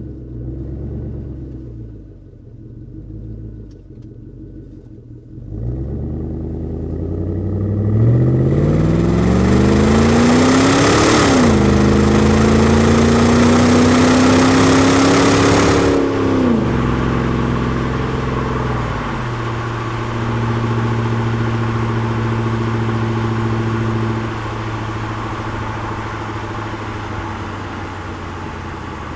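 Car engine running at a rough idle, then revved: its pitch climbs, is held at raised speed for several seconds, and then falls back to a steady idle.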